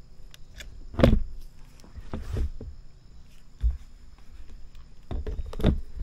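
Handheld hot stapler (plastic repair welder) being worked against a cracked plastic door panel: several knocks and clicks of the tool and panel being handled, the loudest about a second in, over a faint high steady tone.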